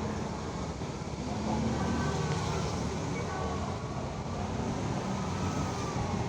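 Steady low rumble of background noise, with faint distant voices.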